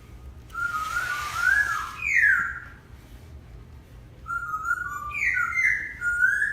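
A person whistling a wandering tune of short held notes with quick upward and downward slides. There is a brief hiss of noise between about half a second and two seconds in.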